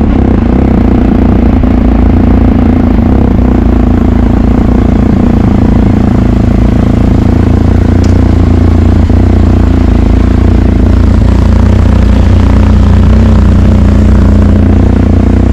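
A vehicle engine running loud and low at a steady pitch, without revving.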